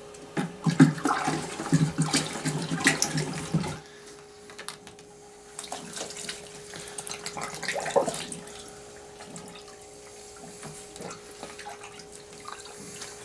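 Water sloshing and splashing in a plastic bucket as baking soda is stirred into it with a wooden stick, busily for about three seconds. Then quieter, scattered splashing as a deer hide is lowered into the baking-soda neutralizing solution and worked by hand, with one louder splash about eight seconds in.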